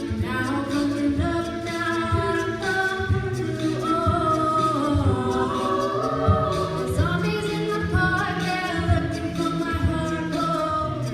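A cappella group singing in harmony, several voices carrying moving lines over a low, steady beat.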